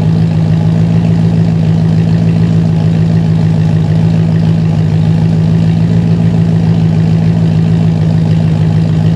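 Classic Mini's four-cylinder A-series carburetted engine idling steadily with the choke off, settled back to its normal idle.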